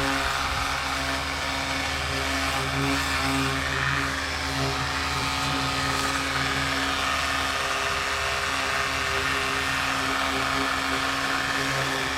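Ryobi 18V EZClean 600 psi cordless pressure washer running: its pump motor hums steadily, swelling and easing every second or so, over the hiss of the water spray.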